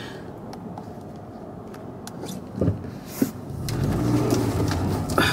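Car running and moving, heard from inside the cabin as a steady low hum that gets louder about three and a half seconds in. Two short knocks come just before.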